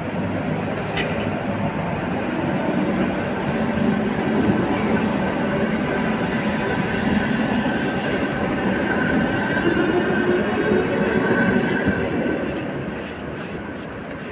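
A Tatra KT8D5 articulated tram passing close by. Its motors and wheels run on the rails as it rounds a curve, with a faint high wheel whine through the middle, and it fades away near the end.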